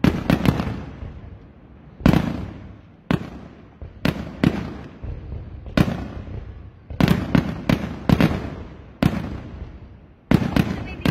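Aerial fireworks shells bursting in a steady series, a sharp bang about every second, some coming two or three in quick succession, each trailing off in a low rolling rumble.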